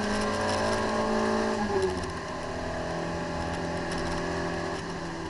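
Citroën AX GTI's four-cylinder engine pulling hard on track, heard from inside the cabin, its note creeping up in pitch; just under two seconds in the revs drop and it goes quieter, then holds a lower, steady note.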